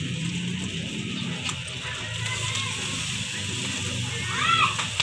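Background music with a steady hiss over it. A short rising-and-falling call is heard about four and a half seconds in.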